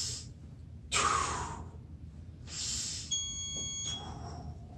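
A man breathing out forcefully three times in short hissing breaths while pressing a weight overhead from a tall-kneeling position. About three seconds in, a short bell-like ding of several ringing tones sounds for under a second.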